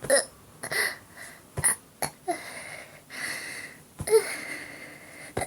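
Blows landing on a woman's stomach: about five sharp thuds, each drawing a short grunt or gasp from her, with breathy sounds in between.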